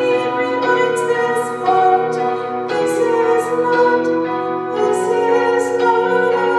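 Music: a slow song sung over sustained keyboard chords, the notes changing about once a second.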